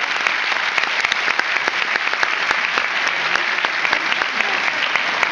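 Theatre audience applauding: many hands clapping in a dense, steady stream.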